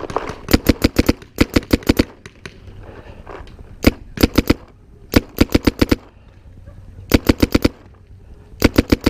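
Paintball markers firing in rapid strings of four to six shots, about six strings in all with short pauses between them and one lone shot midway.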